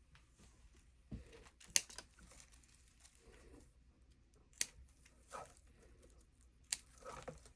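Handling noises: a few scattered sharp clicks and taps with light rustling, the loudest about two seconds in.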